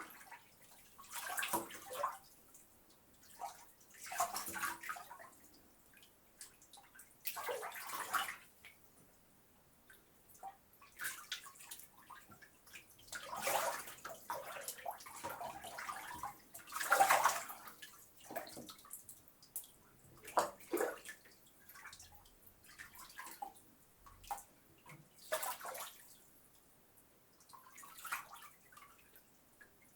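Bathwater sloshing and splashing in short, irregular bursts every few seconds as someone moves in the tub, with quiet gaps between; the biggest splash comes a little past the middle.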